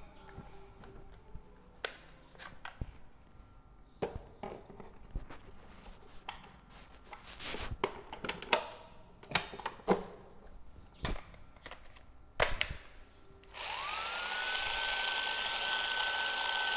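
Plastic clicks and knocks as a 12V Ni-MH battery pack is handled and fitted to a Makita cordless impact driver. Near the end, the driver's motor spins up with a short rising whine and then runs steadily with no load.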